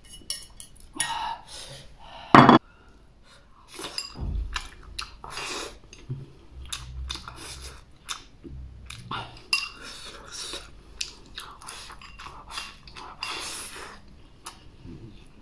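Chopsticks scraping and clinking against a ceramic bowl and pan, with one sharp knock about two and a half seconds in. Then chewing of mouthfuls of rice and fried green chilies, eaten from the bowl with chopsticks.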